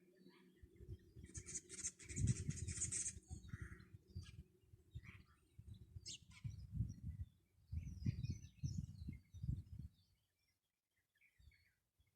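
Wild birds chirping and calling, with a dense burst of chatter about a second in, over irregular low rumbling bursts; the sound drops away almost completely about ten seconds in.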